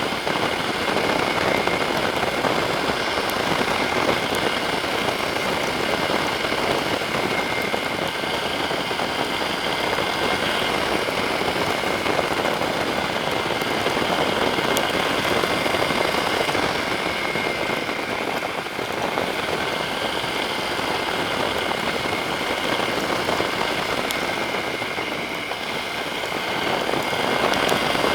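Yamaha Serow 250 motorcycle being ridden in the rain: its air-cooled single-cylinder engine runs under a steady hiss of wind and rain on the microphone, with a brief dip about two-thirds of the way through.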